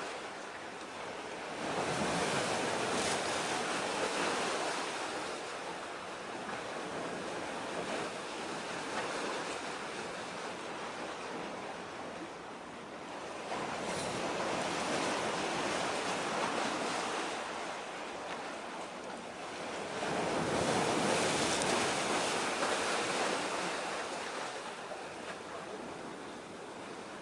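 Sea waves breaking and washing ashore, swelling loudly three times and easing between.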